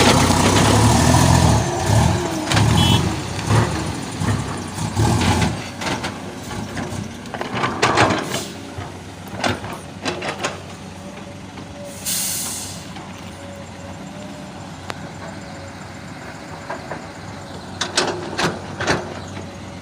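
Big truck's diesel engine running loud, with a low rhythmic beat, for about the first five seconds, then dropping away to a low background. A short hiss of air comes about twelve seconds in, with a few scattered clicks and knocks.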